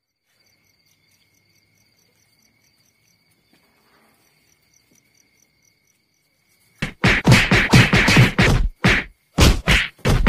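Faint insect chirping, like crickets, over near silence. Then, about seven seconds in, a fast run of loud whacks, about five a second, with a short break near the end.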